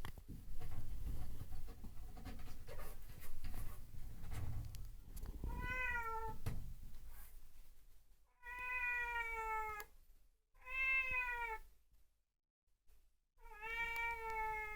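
Domestic cat meowing to be let into the toilet room: four long, drawn-out meows in the second half. They are preceded by several seconds of low rumbling, scuffling noise, the loudest part.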